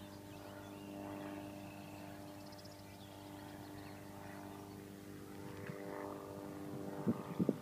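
Distant Cygnet SF-2A homebuilt light aircraft in flight, its piston engine and propeller droning steadily and sounding strong. A few low thumps about seven seconds in.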